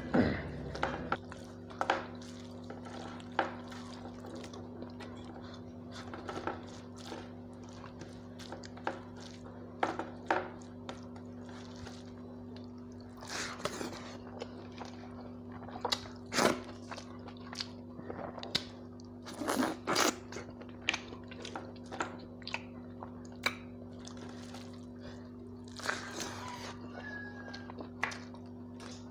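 Someone eating by hand: chewing and crunching mouthfuls of rice and fried vegetables, with scattered short clicks and smacks from fingers on a steel plate, over a steady low hum.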